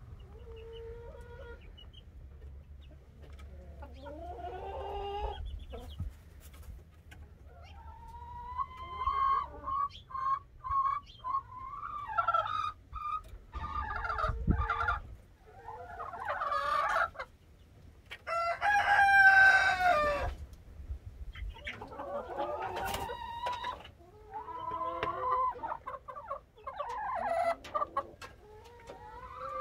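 Chickens clucking and crowing: a series of repeated calls, some long and drawn out, the loudest a little past the middle.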